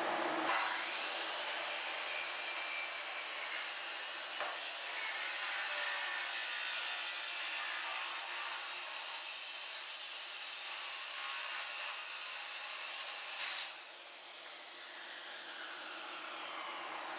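Circular saw starting up and cutting through a particleboard countertop, a steady loud whine with the rasp of the blade in the wood. Near the end the cut finishes, the trigger is released and the blade winds down with a falling whine.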